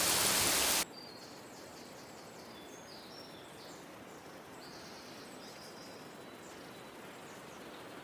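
Steady heavy rain that cuts off abruptly under a second in, leaving a quiet forest ambience with birds chirping in short, high calls.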